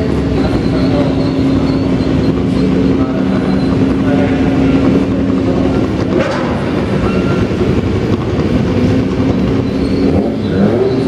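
Race car engines running past at parade pace, one steady engine note held through the first half, then shifting engine notes as other cars go by.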